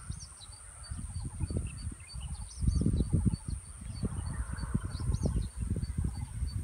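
Wind buffeting the microphone in uneven gusts, with small birds chirping a few short times over a fast, regular high-pitched ticking and a steady very high drone.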